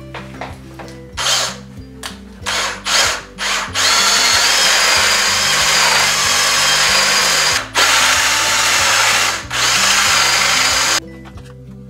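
Cordless drill boring into wood with a Forstner bit: a few short trigger bursts, then a steady run of about seven seconds, broken twice briefly, that stops about a second before the end. Background music plays underneath.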